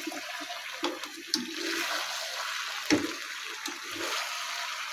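Potato slices with tomatoes sizzling in a non-stick kadai, being dry-fried without water while a wooden spatula stirs them, with a few knocks and scrapes of the spatula on the pan, the loudest about three seconds in.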